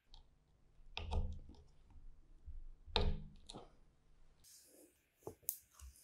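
Hands handling metal parts of a motor and microwave-transformer assembly: two sharp clicks about two seconds apart, each followed by a few lighter ticks. Near the end a rasping hiss as electrical tape is pulled off the roll.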